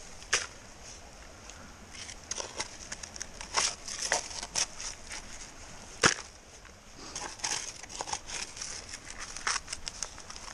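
Rocks and gravel scraping and clattering as creek-bank gravel is dug out by hand, in irregular clicks and knocks, with one sharp knock about six seconds in.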